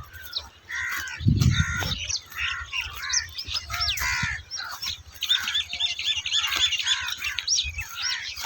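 Many small birds chirping and calling over one another, with a quick run of repeated high notes about five seconds in. A brief low rumble comes about a second in.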